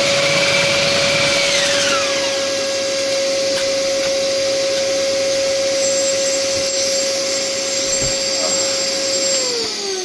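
Diamond core drill boring a flue hole through a brick wall, with a dust-extraction vacuum running on the same hose. There is a loud steady motor whine over a rushing noise, and near the end the whine falls in pitch as the motor winds down.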